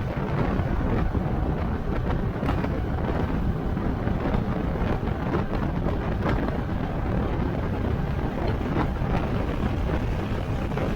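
Steady low rumbling noise with a few faint ticks scattered through it.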